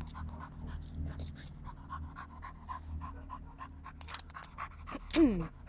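Dog panting rapidly with quick, even breaths. Near the end a short loud cry slides down in pitch.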